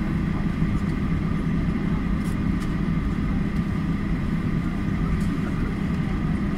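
Steady cabin noise of a Boeing 737 taxiing, heard from inside the cabin: the turbofan engines running at low taxi power, a constant hum and rumble with a few held tones.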